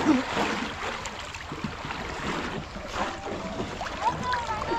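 Muddy pond water sloshing and splashing around people wading waist-deep, with a few faint high calls near the end.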